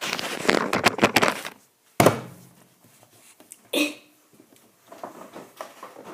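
Rummaging clatter for about a second and a half, then a single loud thunk about two seconds in, like a door or drawer shutting, with lighter knocks near the end.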